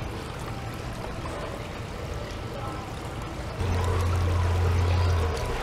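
Water from a tiered leaf fountain pouring and trickling from leaf to leaf into the basin. About three and a half seconds in, a loud low steady hum comes in under the water.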